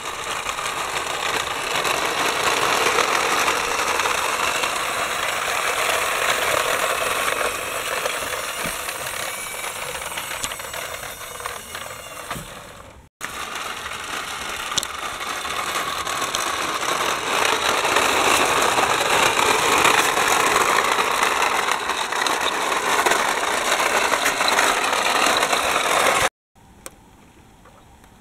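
Plastic toy articulated buses rolling over a rough concrete path, a continuous loud grinding rattle of plastic wheels and mechanism. It breaks off for a moment about halfway through and stops abruptly near the end.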